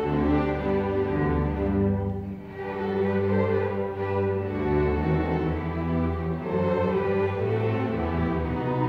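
Student string orchestra of violins, cellos and double basses playing a bowed piece in held notes, dipping briefly softer about two seconds in.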